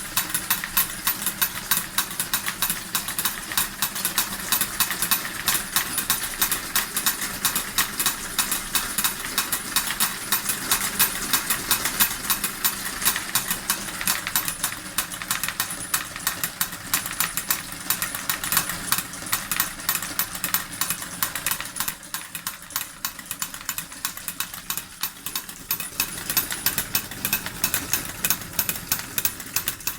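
Model steam engine driving two miniature forging hammers: a rapid, even clatter of small hammer strikes over the running engine, easing slightly for a few seconds about two thirds of the way through.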